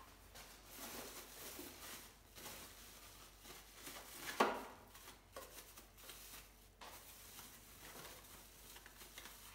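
Plastic packaging bags rustling and crinkling as juicer parts are unwrapped, with one sharp knock about four and a half seconds in.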